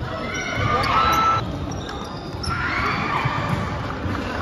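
A basketball bouncing on a hardwood gym floor, with sneakers squeaking in short high squeals about one and three seconds in.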